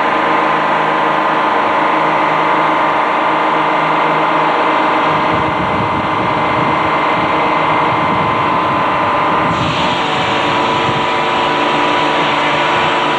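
Old Frick sawmill machinery running: a steady mechanical drone with a high whine. A deeper rumble comes in about five seconds in, and a harsher hiss joins it at about ten seconds.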